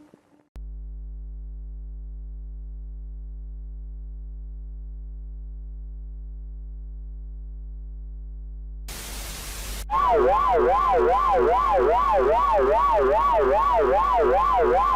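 Simulated emergency-broadcast alarm audio: a steady low electronic hum, a burst of static about nine seconds in, then a loud, rapidly warbling electronic alarm tone sweeping up and down in pitch from about ten seconds in.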